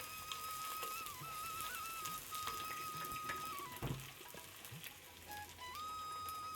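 Background music with a flute-like melody in long held notes, over a faint sizzling hiss and a few small clicks, with one louder thump about four seconds in.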